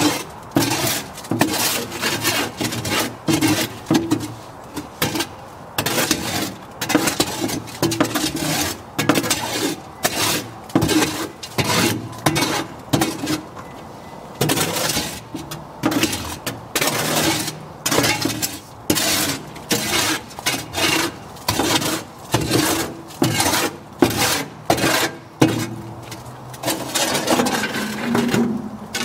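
Concrete being mixed by hand in a wheelbarrow: a tool scrapes through the wet mix and along the tray in quick repeated strokes, a bit more than one a second.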